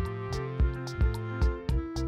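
Background music with a steady beat, about two beats a second, over held instrumental notes.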